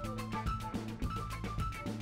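Background music with a steady drum beat and a light melody.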